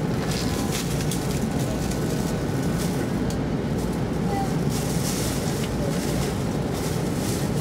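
Cabin noise of an E2 series Shinkansen running at speed on an elevated line: a steady low rumble of wheels on rail, with brief rushes of higher hiss now and then.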